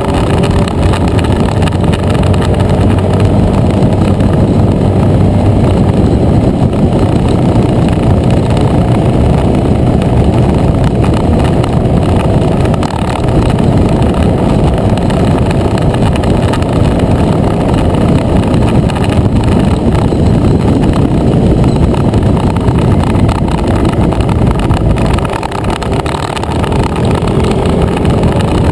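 A scooter riding along at road speed, wind rushing over the microphone with the engine running underneath. The sound eases briefly about 13 seconds in and again near the end.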